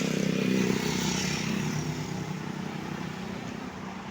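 A tour bus drives past, its diesel engine drone loudest at the start and fading away over the next few seconds.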